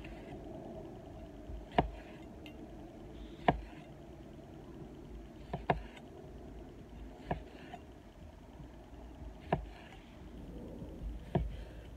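Chef's knife cutting cherry tomatoes in half on a wooden cutting board, each cut ending in a sharp knock of the blade on the wood, about seven knocks roughly two seconds apart.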